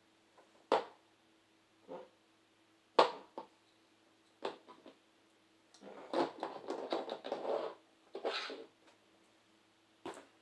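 Hard plastic Beyblade parts handled and set down on a table mat: a few sharp clicks and taps, then about two seconds of rustling and scraping past the middle, with one more short burst of it.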